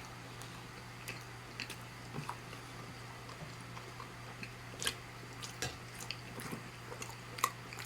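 Close-miked chewing of plant-based chicken, with scattered short, wet mouth clicks. A steady low hum runs underneath.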